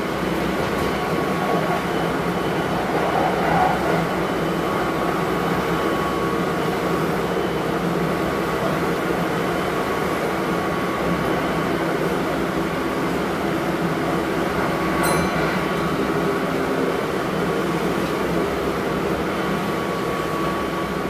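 Running noise inside a Kintetsu 1220 series electric train car with Hitachi GTO-VVVF traction equipment: a steady rumble of wheels on rail with a few unchanging hums and tones. A short high-pitched tick comes about fifteen seconds in.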